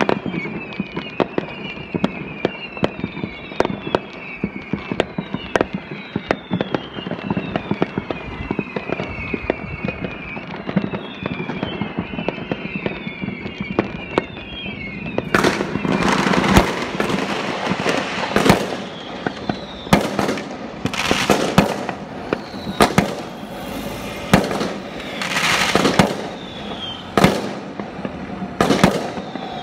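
Fireworks going off around a neighbourhood: scattered cracks and bangs, with a high falling whistle repeating over and over in the first half. About fifteen seconds in, louder, closer bangs start coming thick and fast, each echoing off the houses.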